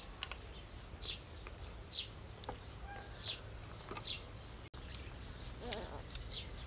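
A bird chirping over and over, about once a second, each call a short high note falling in pitch, with a few light clicks in between.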